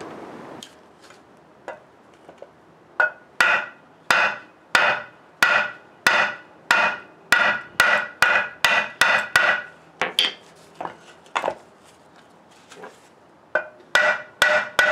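Hammer striking a chisel to stake the bolt ends on a Ford Model T flywheel, each blow ringing. About two blows a second start about three seconds in, thin out and pause around the tenth second, then start again near the end.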